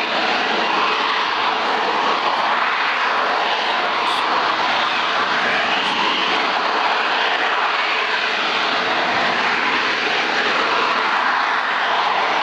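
Harrier jump jet hovering, its Rolls-Royce Pegasus vectored-thrust turbofan running steadily at high power with a loud rushing noise that wavers slowly in tone.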